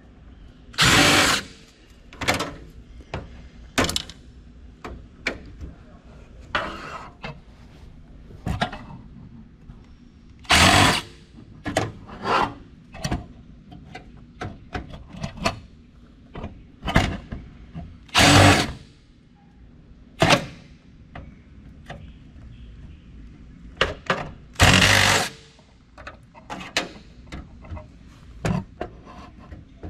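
Power driver running in several short bursts, backing rusty screws out of a computer motherboard, between sharp clicks and knocks of handling.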